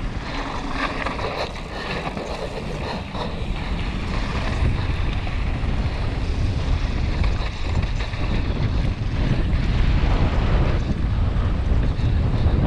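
Wind buffeting a helmet-mounted GoPro's microphone during a fast mountain-bike descent on a dirt trail, a dense low rumble mixed with tyre and trail noise. It grows louder as the bike picks up speed.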